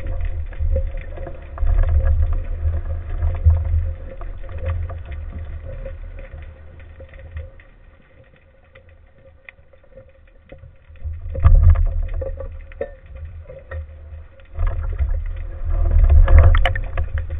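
Underwater water noise on a speargun-mounted camera: low rumbling and rushing of water as the diver moves, dying down for a few seconds in the middle, then loud surges again from about eleven seconds in and near the end. A faint steady hum runs underneath.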